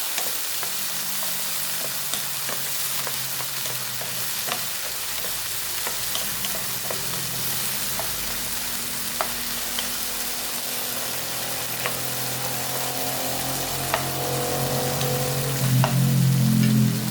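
Small chicken pieces sizzling in hot oil in a pan while being stirred, with a spatula clicking against the pan every second or so.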